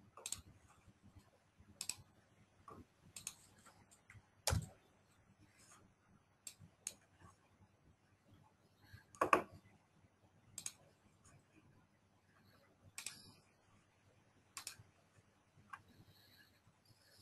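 Faint, irregular clicks of a computer mouse and keyboard, about a dozen scattered single clicks with two louder ones.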